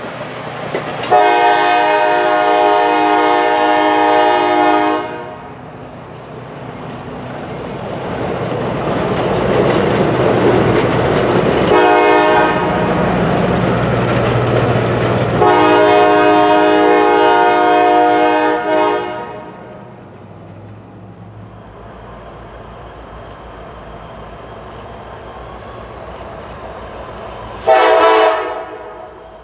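Diesel locomotive air horn, a chord of several notes: a long blast, a short one some ten seconds later, then another long blast, over the rumble and clatter of passenger cars rolling by. After a quieter stretch of distant rumble, one more short horn blast comes near the end as the train approaches.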